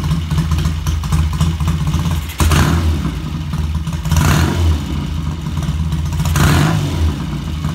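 Triumph parallel-twin motorcycle engine with a freshly rebuilt top end, idling steadily and revved briefly three times with the throttle. It runs smoothly and sounds really good.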